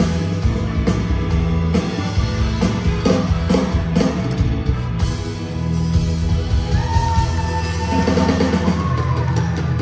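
Live rock band playing loud: two electric guitars, bass guitar and drum kit. From about seven seconds in a high note is held, sliding down near the end.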